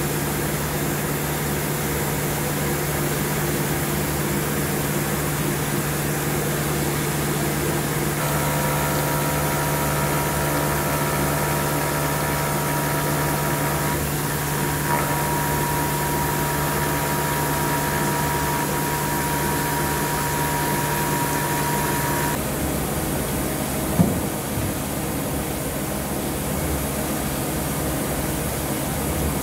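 CNC machining center milling steel: a steady machine hum, joined by a higher whine from about 8 s to 22 s in. The hum and whine then stop together, and there is a single knock a couple of seconds later.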